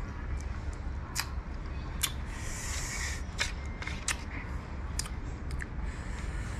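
Metal spoon clinking and scraping against a ceramic bowl while scooping fruit in sauce: sharp, irregular clicks, with a brief hissing scrape a little over two seconds in.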